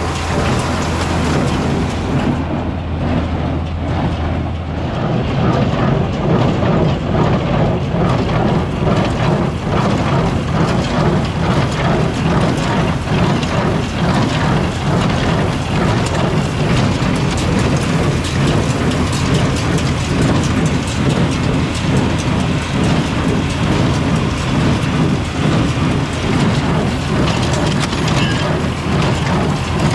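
John Deere 4020 tractor's six-cylinder engine running steadily with a hay baler clattering behind it. The low engine note changes and the sound gets louder about five seconds in.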